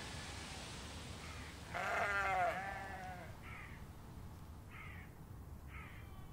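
Sheep bleating: one long, wavering bleat about two seconds in, followed by three short calls.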